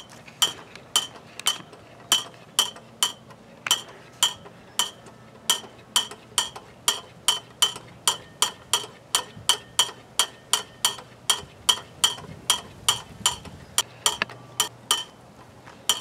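Big wooden bird-chaser whirligig turning in the breeze, its clapper clanging in a fairly even rhythm of about two and a half sharp strikes a second, each ringing briefly.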